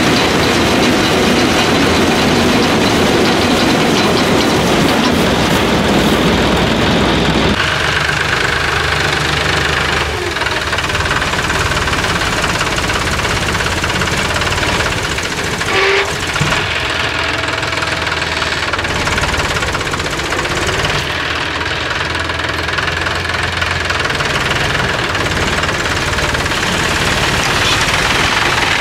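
John Deere rice combine harvester running, its engine and threshing machinery making a loud, steady mechanical din. The sound changes abruptly about seven seconds in, becoming thinner in the middle range, and a short sharp sound stands out about halfway through.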